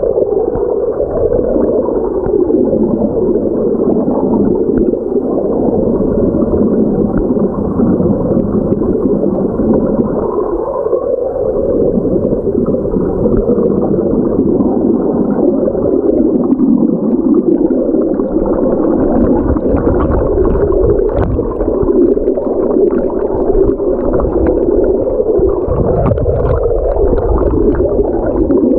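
Creek water churning with air bubbles, heard through a phone microphone held underwater: a loud, steady, muffled rush with little high sound, and small bubble clicks and pops scattered through the second half.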